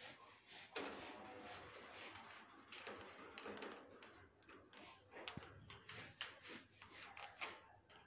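Faint scraping and rustling as a crow works its beak against a metal spoon and a paper slip, with a few sharp taps in the second half.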